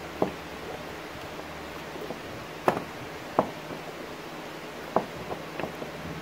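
A handful of sharp, irregular clicks and taps from a screwdriver turning a stainless machine screw and washer into a well nut in a plastic kayak hull, over a steady low hiss.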